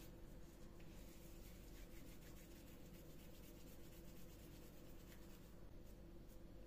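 Near silence: faint soft rustling of hands pinching off raw minced-meat köfte mixture from a glass bowl and rolling it between the palms, over a low steady hum. The hand sounds fade about five and a half seconds in.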